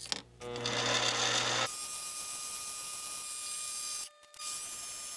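Mini metal lathe starting up about half a second in, then running steadily with a high motor whine. The sound drops out briefly around four seconds and resumes.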